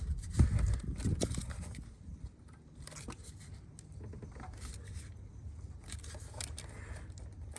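Plastic electrical connectors being pushed and clipped back onto a car's new ignition coil packs: scattered small clicks and handling knocks, loudest about half a second in and busier in the first second and a half.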